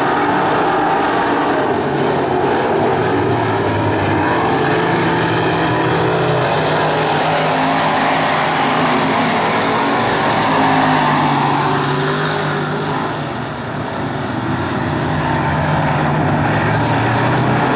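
Several dirt-track race car engines running hard together as the pack laps the oval. It is loud and continuous, swelling about eleven seconds in as cars come by closest and dipping briefly a couple of seconds later.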